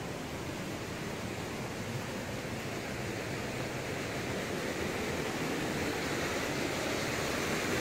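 Steady rush of flash-flood water flowing down a canyon creek, growing slightly louder.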